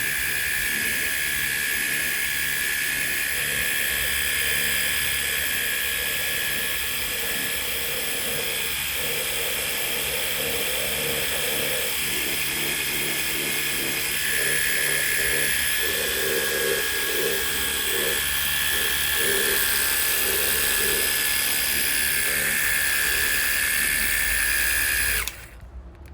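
Battery-powered portable jet wash running and spraying water, its pump motor whining steadily, then cutting off abruptly near the end.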